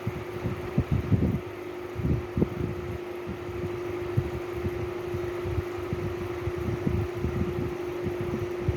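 A fan running with a steady hum, with irregular low thumps and rumbles over it.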